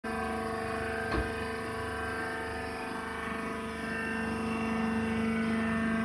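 Hydraulic wood-shaving baler's power unit running steadily, a motor-and-pump hum made of several constant tones, with one low tone growing stronger about halfway through. A short knock about a second in.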